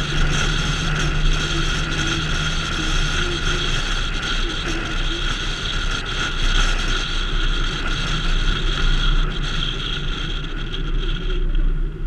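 Car driving on a road, heard from a dash-mounted camera: steady tyre and engine noise with a low hum. The hum fades about four seconds in, and the higher part of the noise drops away just before the end as the car slows.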